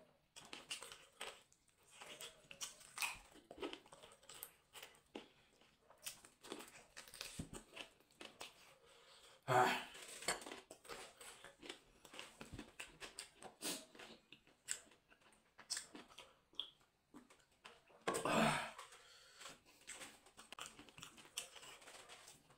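Close-up eating sounds of meat eaten by hand: wet chewing, lip smacks and small clicks, with tearing of flesh from the bone. Two louder, longer sounds stand out, about ten and eighteen seconds in.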